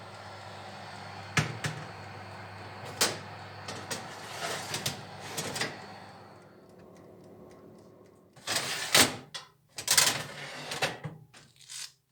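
A steady low hum with a few sharp clicks and knocks, fading out about six seconds in, then a run of loud rustling and knocking handling noises.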